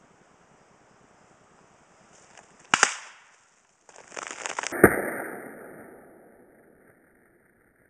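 Two sharp, gunshot-like bangs about two seconds apart, with a crackling between them; the second bang is the louder, with a long fading tail.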